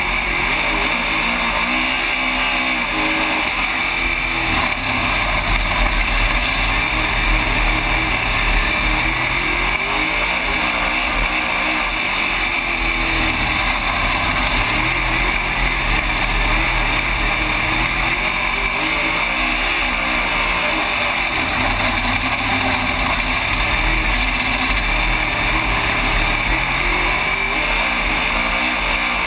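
Race car engine running hard under racing load, heard from inside the cockpit over a constant roar of wind and track noise. Its pitch sweeps up and down several times as the car goes through the turns and straights.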